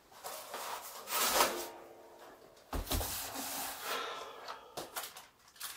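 Rustling and scraping of a cardboard box of food-service plastic film wrap being handled. A thud a little under three seconds in as it is set down on a stainless steel table, then film scraping as it is drawn off the roll, with a few short clicks near the end.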